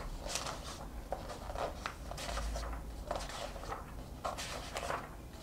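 Magazine pages being turned and handled: a string of short, irregular paper rustles and swishes.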